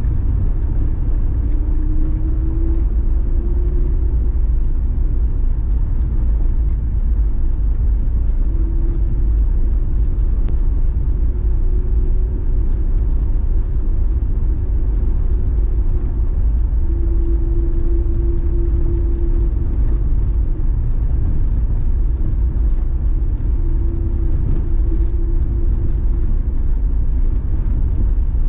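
Mercury Mountaineer SUV driving, heard from inside the cabin: a steady low rumble of engine and road, with an engine hum that comes and goes several times, rising a little in pitch as it comes in.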